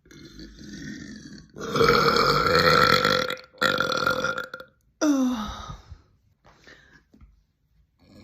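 A series of women burping, four in a row: a quieter burp at first, then a long loud one, another close after it, and a short burp about five seconds in that drops in pitch.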